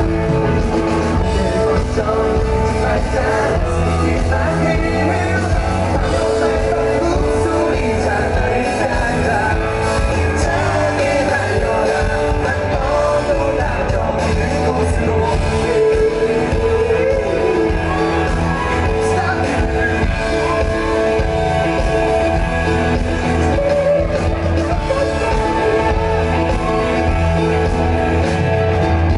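Live pop-rock band playing a song, with singing over guitars, bass and drums.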